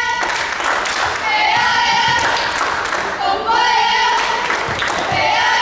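A group of girls chanting a cheer together in high voices, with hand clapping.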